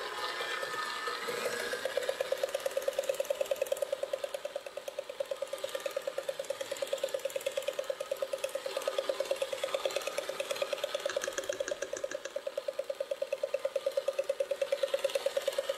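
Electric stand mixer running steadily, its wire whip beating a thickening mix of cream cheese, heavy cream and instant lemon pudding in a stainless steel bowl. A steady motor hum with a fast, even pulsing.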